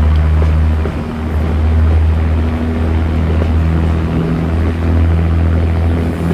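Class 108 diesel multiple unit's underfloor diesel engines working hard under power (thrash), heard from an open carriage window. The engines give a loud, steady, deep throb of nearly constant pitch over a rushing of running noise.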